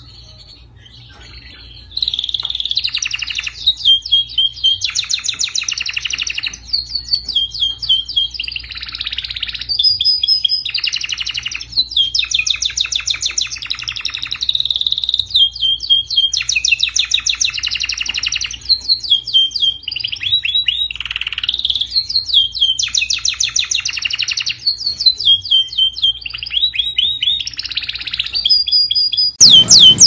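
Domestic canary singing a long, continuous song of rapid trills and repeated note runs, starting about two seconds in. Near the end it switches to a louder run of quickly repeated falling whistles. A faint low hum runs underneath.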